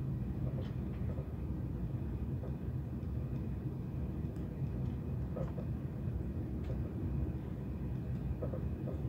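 Steady low rumble of a TGV running on the track, heard from inside the passenger carriage, with a few faint clicks and rattles scattered through it.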